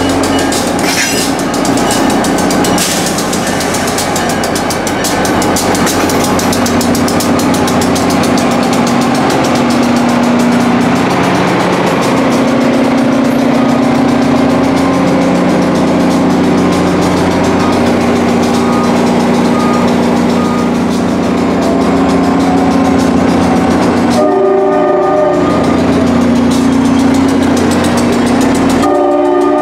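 Shore Line East GP40-2H diesel locomotive running steadily as it pulls its coaches past along the platform. Near the end a horn sounds twice, briefly.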